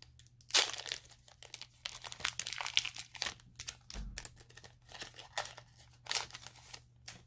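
Foil Pokémon booster-pack wrapper crinkling in the hands and being torn open, in irregular bursts of rustling.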